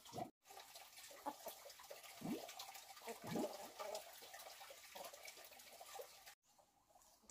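Faint farmyard ambience with a few short calls from chickens, over a steady hiss with light ticking.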